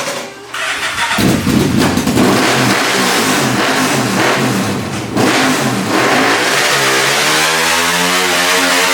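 1998 Yamaha Vmax 1200cc V4 with Black Widow mufflers firing up about a second in and being revved up and down to clear carbon from a rough idle, then held at a steadier, slightly rising engine speed in the last few seconds.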